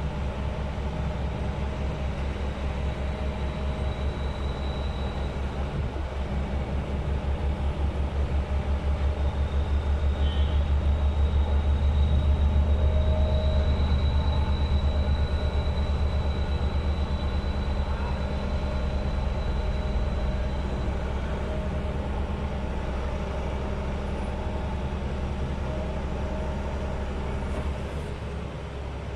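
Sheet pile driver running steadily: a low drone with a fast, even pulsing, swelling to its loudest about halfway through, then easing off and dropping in level near the end.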